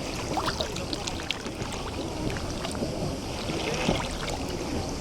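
Sea water lapping and gurgling at the shoreline of a bay, with many small splashes and clicks over a low wash.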